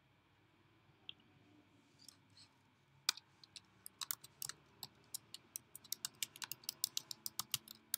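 A single click about a second in, then typing on a computer keyboard from about three seconds in: a quick, uneven run of keystrokes, several a second.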